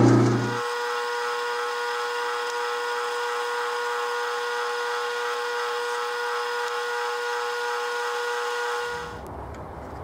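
Atlas metal lathe parting off a threaded workpiece with a parting tool. A low hum in the first half second gives way to a steady pitched whine with overtones that lasts about eight seconds and stops shortly before the end, as the piece is cut off.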